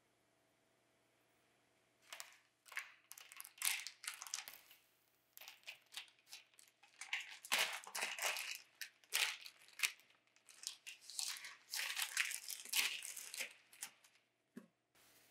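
Parchment paper rustling and crinkling under a soft baked loaf as it is lifted and handled. The sound comes in irregular bursts, starting about two seconds in.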